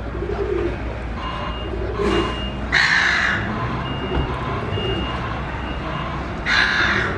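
A vehicle's reversing beeper sounding a short high beep about once a second over a low engine rumble, with a pigeon cooing low at the start. Two loud bursts of hiss, each under a second, come about three seconds and six and a half seconds in.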